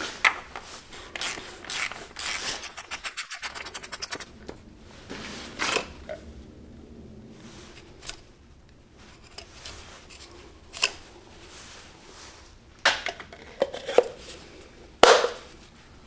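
Gloved hands handling a plastic oil filter housing, its filter and o-ring, giving scraping and rubbing noises with sharp clicks and knocks. A quick run of evenly spaced clicks comes about three seconds in, and the loudest knocks come near the end.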